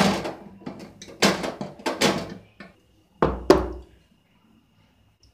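Metal kitchenware being handled: a sharp clank as an aluminium pressure cooker's lid is worked, a second or so of clattering, then two heavy knocks close together about three seconds in as a steel bowl is moved.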